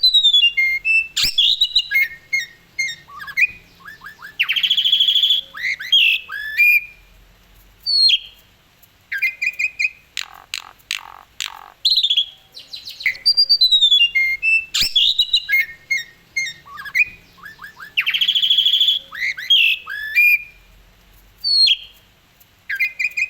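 A jalak suren (Asian pied starling) sings loudly. It mixes clear whistles that slide up and down with harsh, squawking notes and quick chattering trills, in short phrases with brief pauses between them. The same run of phrases starts over about fourteen seconds in.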